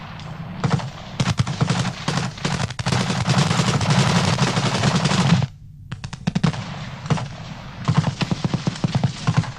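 Automatic gunfire, dense and near-continuous, with overlapping bursts that cut off abruptly about five and a half seconds in. After that come shorter separate bursts and single shots.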